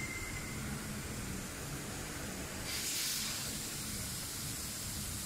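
Gloved hands working the exhaust pressure sensor free of its pipe: a brief rustling hiss about three seconds in, over a faint steady hiss.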